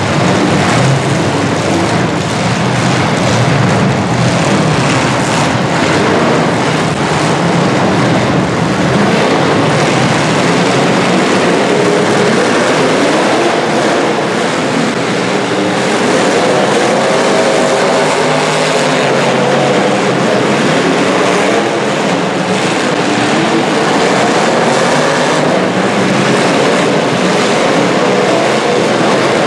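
Several demolition derby cars' engines running hard together, a loud continuous roar with engines revving up and down as the cars drive and hit each other.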